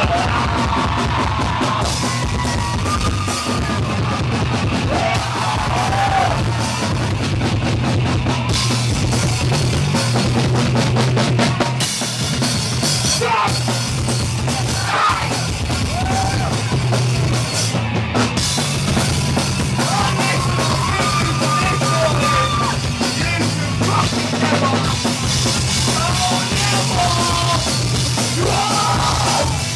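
Live rock band playing loud: drum kit and guitar under shouted vocals.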